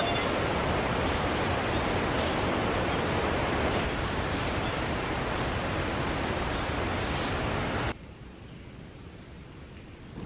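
A steady rushing noise, even from deep to high, that cuts suddenly to a much fainter hiss about eight seconds in.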